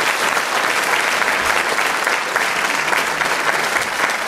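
Audience applauding steadily in a hall: dense, continuous clapping from many hands.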